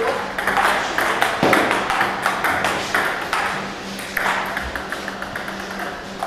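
Table tennis balls clicking off paddles and tables in quick, irregular rallies, the clicks from more than one table overlapping, over a steady low hum.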